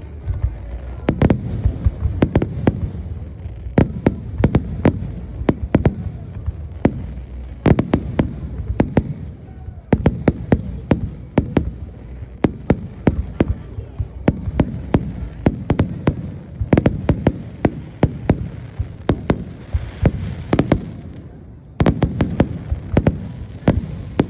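Fireworks display: a rapid, continuous run of shell bursts, several sharp bangs a second over a steady low rumble, easing briefly near the end before a fresh volley.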